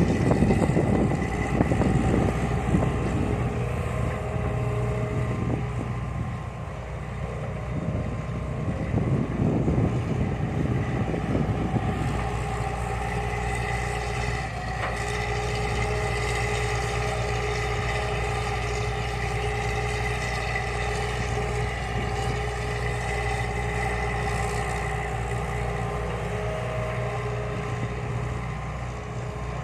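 Hitachi excavator's diesel engine running steadily while it digs and loads soil, with heavier stretches of engine and working noise in the first few seconds and again around eight to twelve seconds in.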